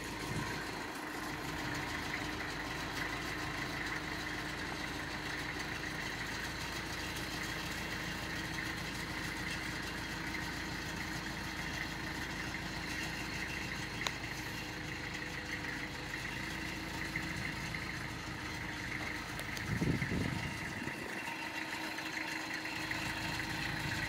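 Tractor engine idling steadily, a constant even hum, with a brief low rumble about twenty seconds in.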